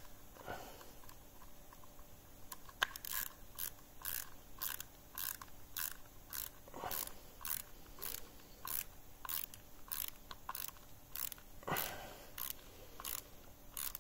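Small hand screwdriver driving a screw into a 3D-printed plastic adapter part: a faint, regular clicking, about two clicks a second, as the screw is turned in.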